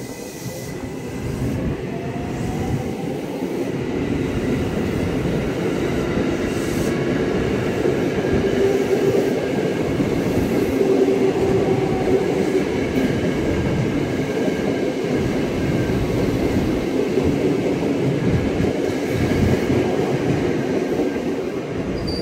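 KRL Commuter Line electric multiple unit running past along the platform, its wheels rumbling and clattering on the rails with a motor whine rising in pitch in the first few seconds. It builds to its loudest in the middle and fades near the end as the last car draws away.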